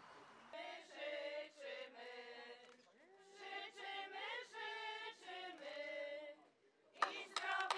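Women's folk choir singing a short passage in several voices; clapping starts near the end.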